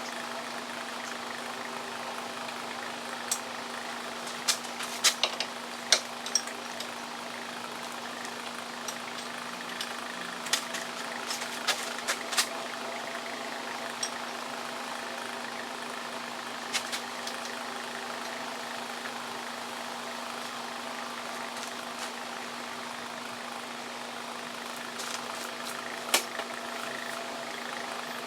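Scattered sharp metallic clicks and clinks of hand tools working on a car's oil pressure switch, in several short clusters, over a steady low hum.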